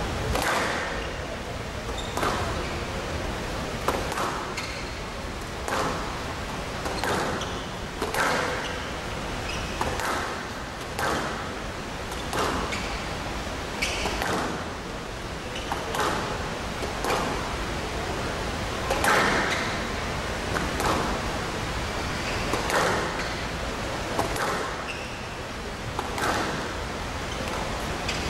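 Squash rally: the ball is struck by rackets and hits the court walls in a string of sharp hits, about one a second.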